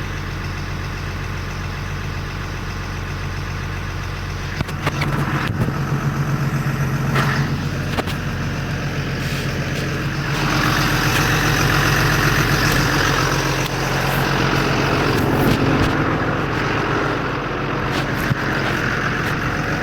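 Diesel engine of a MAN 6x4 concrete mixer truck running with a steady low hum. About five seconds in the engine note strengthens, and from about ten seconds in a louder, noisier sound rides over it for several seconds.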